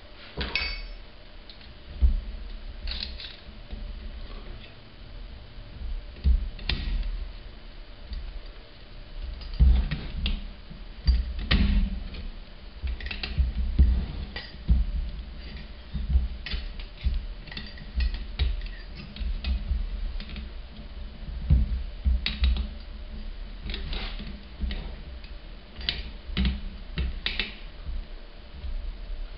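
Metal parts of a Stirling engine regenerator being handled and fitted together by hand: irregular clicks, taps and light clinks of the slotted cage and its flange ring, with dull thumps of handling on the bench.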